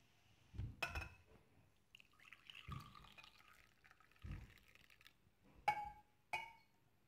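Glassware clinking, then liquid pouring for about three seconds, followed by two more sharp clinks that ring briefly.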